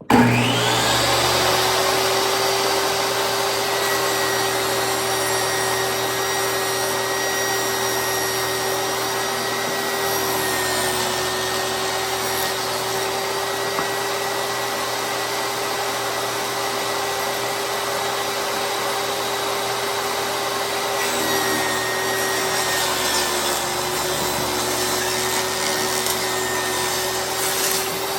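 Table saw switched on, spinning up quickly, then running steadily while ripping a rough-cut fence board. Its pitch sags slightly a couple of times under the load of the cut.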